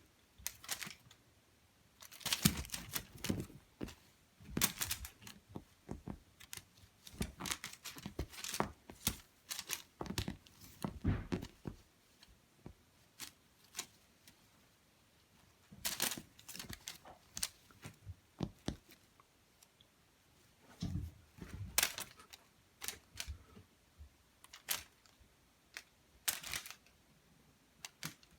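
A cat playing with an insect toy: irregular scuffs, rustles and taps from the toy and the cat's paws on the floor, coming in busy spells with short pauses between them.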